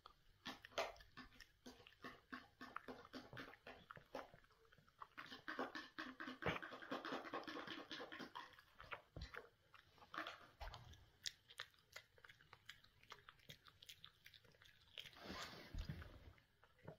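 Small black-and-tan spaniel chewing and crunching small pieces of dry food picked off the carpet: faint, quick crisp bites, busiest about five to eight seconds in.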